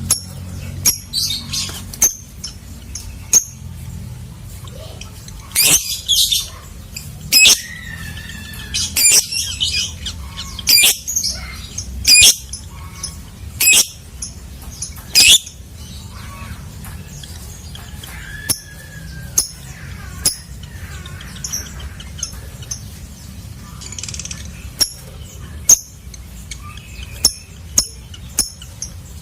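Lovebird calling: a long series of short, shrill chirps and squawks, the loudest coming one after another about every second and a half in the middle stretch. A faint low hum runs underneath.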